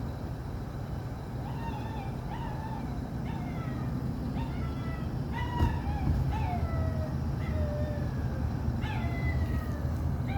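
Puppy crying in a series of high whining yelps, about one a second, each falling in pitch, over a steady low rumble.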